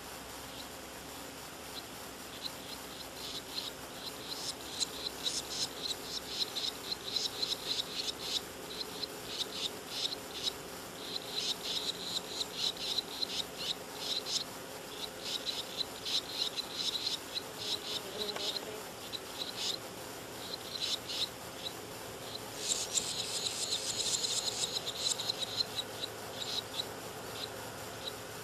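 Swallow nestlings begging from their mud nest: trains of rapid, high, thin chirps in repeated bursts, louder and shriller for a couple of seconds a little before the end.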